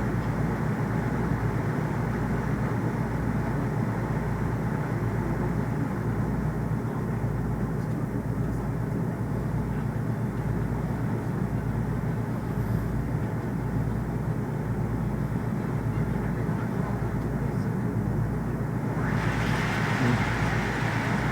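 Steady low rumbling noise with no distinct events, its higher part growing brighter near the end.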